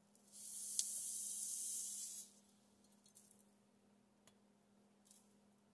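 Fine sand pouring from a small model excavator bucket into a plastic measuring cup: a steady hiss lasting about two seconds, with one sharp tick partway through. A few faint taps follow.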